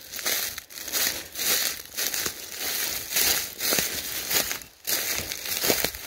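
Footsteps crunching through dry fallen leaves on the forest floor, a crunch with each step at a steady walking pace.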